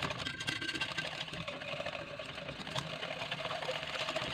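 A spoon stirring fast round a metal saucepan of chocolate glaze mixture (sugar, cocoa, water and cream) heating close to the boil, a steady rapid scraping against the pan.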